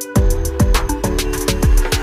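Background electronic music with a steady beat: deep kick drums that drop in pitch, fast hi-hat ticks and a held synth chord.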